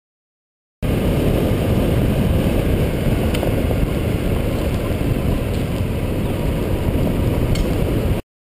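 Dirt bike riding along a gravel road, heard from a bike-mounted camera: engine and heavy wind rumble on the microphone. It starts abruptly about a second in and cuts off suddenly near the end.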